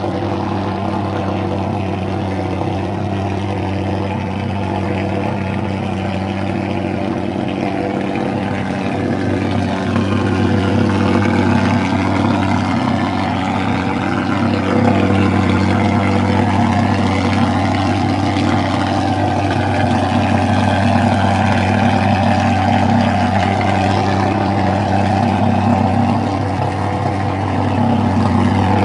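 Portable thermal fogger's pulse-jet engine running with a steady, even drone while it blasts insecticide fog, getting a little louder about a third of the way through.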